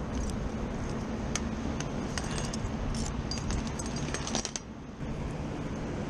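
Metal tools and clips on a hanging tool bag jingling and clinking in quick, irregular clicks, which stop about four and a half seconds in. A steady low rumble runs underneath.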